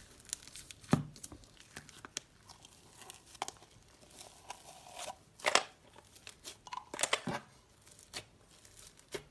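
Slime being squeezed and stretched by hand, a slime made of a blue part with small beads and a pink fluffy part: scattered sticky clicks and crackles, with louder pops about a second in, around five and a half seconds and around seven seconds.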